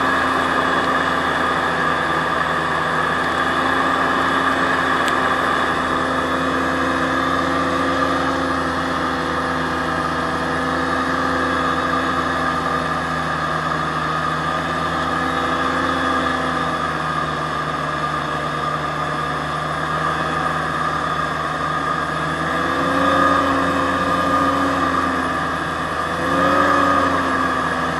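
Aerocruiser SA-1100 hovercraft's engine and fans running steadily under way, the note settling a little lower past the middle, then rising and falling twice in short throttle surges near the end.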